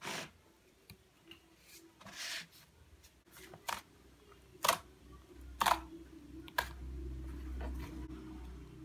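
Thick, chewy homemade chocolate slime being stretched and poked by hand, giving about six sharp sticky clicks and pops, roughly one a second. A low steady hum comes in about halfway through.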